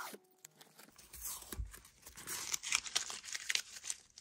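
Rustling and scraping from a nitrile-gloved hand handling a steel pipe wrench on a towel, with small clicks, louder in the second half.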